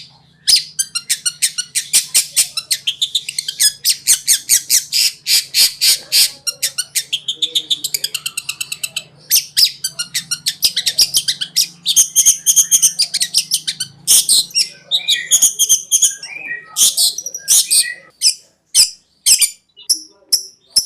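Long-tailed shrike (cendet) singing a fast chattering song of rapid, repeated high notes at about eight a second. About 14 s in it changes to slower, separate sharp calls. A faint low hum lies under it and stops about 18 s in.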